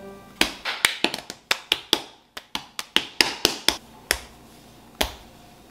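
Hands working a ball of bread dough on a floured tabletop, making quick, irregular sharp taps and slaps, about five a second. They stop about four seconds in, and there is one more a second later.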